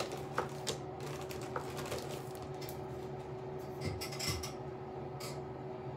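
A few faint clicks from handling makeup, then a powder makeup brush swept over the cheek in short soft strokes about four seconds in and once more near the end, over a steady low hum.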